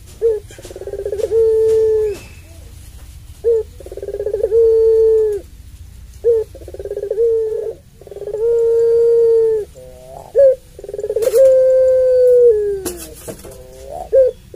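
Puter pelung, a long-voiced strain of ringneck (barbary) dove, cooing its long call: each phrase is a short note followed by a long drawn-out coo that holds steady and then drops at the end. It repeats four times, and a fifth phrase begins near the end.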